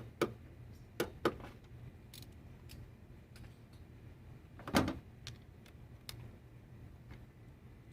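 A few sharp clicks in the first second and a half and a heavier knock about five seconds in, from a bolt being re-torqued with a click-type torque wrench and the tools being handled. A low steady hum runs underneath.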